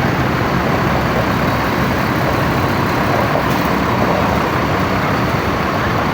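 Tour bus engines running close by: a steady, loud engine and traffic noise with no horn tune.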